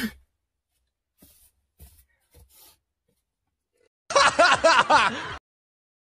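A man's sneeze ends right at the start, followed by a few faint clicks. About four seconds in, voices laugh for a little over a second, then it falls quiet.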